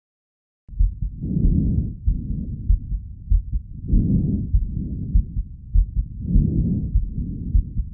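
Normal vesicular breath sounds heard through a stethoscope over the lung: three soft, low-pitched breaths, each a louder breath in running straight into a fainter breath out with no pause between. Low thuds of the heartbeat sound underneath.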